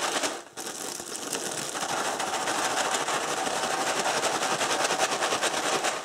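A sealed plastic bag of soap dough sprinkles shaken hard back and forth: fast, continuous crinkling of the plastic with the sprinkles rattling inside, with a short break about half a second in.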